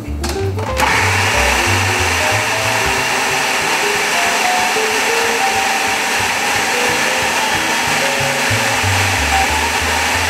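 Electric food processor switching on about a second in, then running steadily as it blends raw cauliflower into a thick mash.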